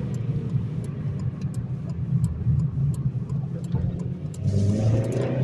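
Honda Civic Si's 2.0-litre four-cylinder engine running at light throttle with road noise while driving. About four and a half seconds in, it pulls harder and the engine note rises.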